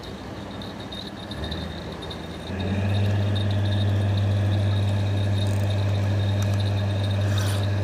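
An engine comes in about a second and a half in, gets louder a second later, then runs steadily with a low hum.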